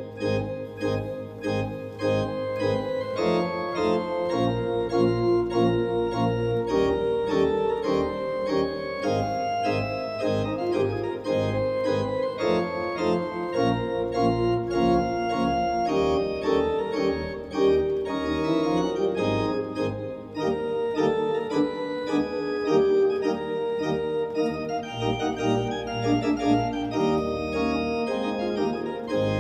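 Allen Historique digital classical organ playing a piece with many quick-moving notes over held bass notes.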